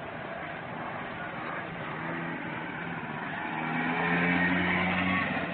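Motor of a children's quad bike running steadily, growing louder as the bike comes close about three and a half seconds in and easing off again near the end.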